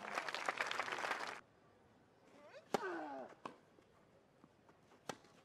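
Crowd applause with many clapping hands, cut off suddenly about a second in. Then a tennis rally: a racket strikes the ball with a short falling grunt from the player, and single sharp ball strikes follow about a second and about two and a half seconds later.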